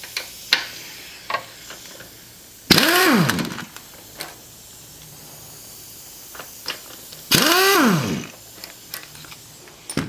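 Cordless drill spinning out the exhaust mounting bolts twice, about a second each run, its motor pitch rising then falling as it spins up and winds down. Small clicks and knocks of the socket and tools come in between.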